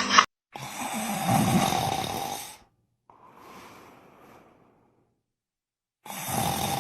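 Snoring: two loud snoring breaths with a steady nasal tone in them, a fainter breath between them, and a silent pause before the second snore.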